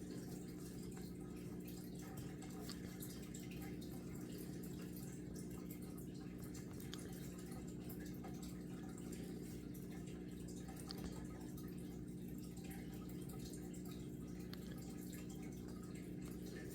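A steady low hum with faint, scattered small clicks.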